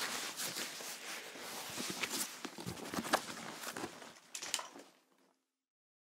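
A backpack being handled: dense fabric rustling mixed with sharp clicks and knocks. The sharpest knocks come about three seconds in and again near four and a half seconds, and the sound stops about five seconds in.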